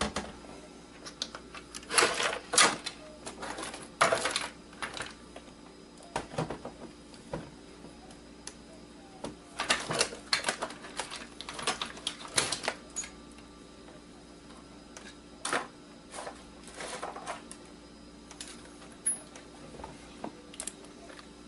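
Irregular clicks and clatter of plastic and metal parts being handled and pried apart while an electronic device is being disassembled, with quiet gaps between the bursts.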